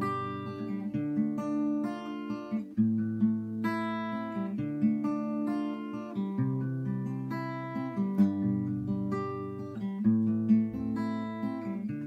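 Acoustic guitar strummed in a steady rhythm, its chords changing every second or so.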